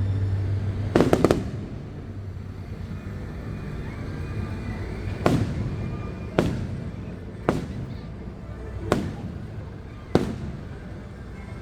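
Fireworks shells bursting: a quick cluster of three bangs about a second in, then single bangs about once a second.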